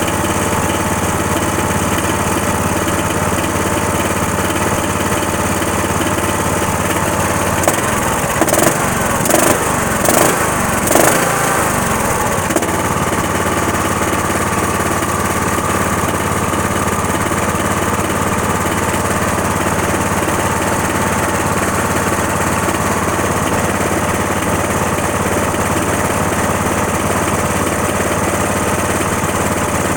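Cub Cadet lawn tractor engine running steadily; the owner calls it a bad motor. About eight seconds in, four or five short, louder bursts come over the running within a few seconds. After that, a steady higher whine joins in.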